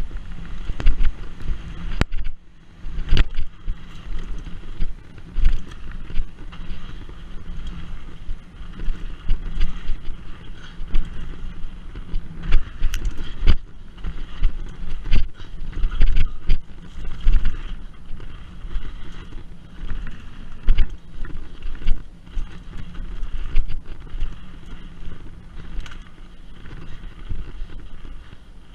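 Mountain bike running fast down a dirt trail: steady tyre noise on the dirt with frequent sharp knocks and rattles as the bike hits bumps and rocks, over a low rumble of wind on the microphone.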